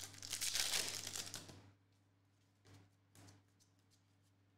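Foil wrapper of an NBA Hoops trading-card pack being torn open and crinkled for about a second and a half, followed by two faint short rustles as the cards are handled.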